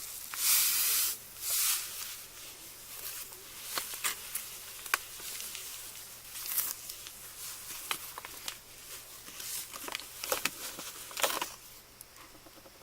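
A wet, gritty sand-and-glue craft mixture being stirred and scraped in a container: two longer scrapes near the start, then a run of shorter scrapes and sharp clicks.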